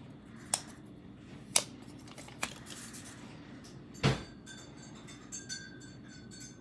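Earbud packaging and its contents being handled: a few sharp clicks and taps, the loudest a knock with a low thud about four seconds in, followed by small light ticks.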